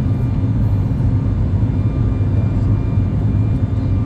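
Cabin noise of a Boeing 737 MAX 8 climbing after takeoff: its CFM LEAP-1B turbofans at climb thrust and the airflow give a steady, deep rumble with a faint steady whine above it.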